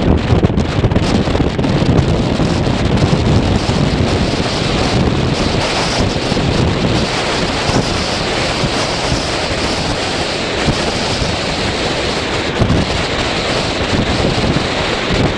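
Wind buffeting the microphone over a steady rushing hiss of water, which grows brighter about a third of the way in.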